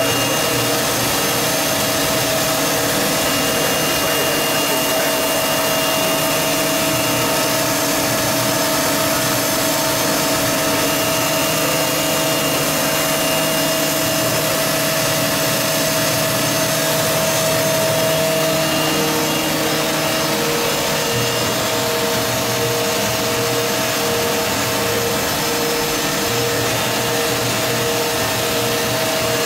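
Fadal VMC 6030 vertical machining center running under its CNC program, a steady machine whir. Its tones change pitch a few times, and near the end a pulsing tone comes in, about one and a half pulses a second.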